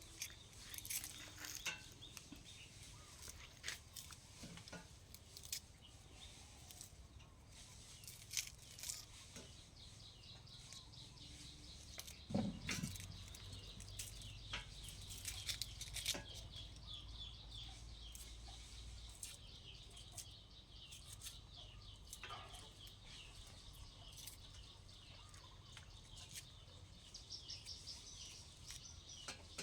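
Faint bird calls, many short high chirps in quick succession, with scattered light clicks and knocks and one dull thump about twelve seconds in.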